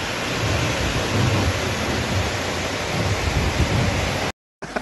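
Floodwater rushing through a street in torrential rain, a steady loud wash of noise with a fluctuating low rumble. It cuts off suddenly near the end.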